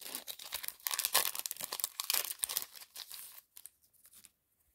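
Foil wrapper of an Upper Deck MVP hockey card pack being torn open and crinkled: a dense run of crackling and ripping for about three and a half seconds, then a few faint rustles as it dies away.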